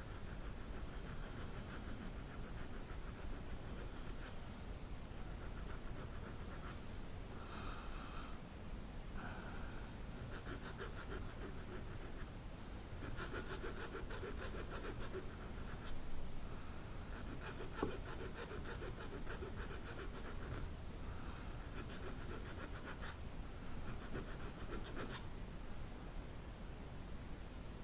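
Small hand file rasping on the top edge of a SAAB 9-5 ignition lock wafer, in several spells of quick, short strokes with pauses between them. The wafer is being filed down so it stops catching in the worn cylinder.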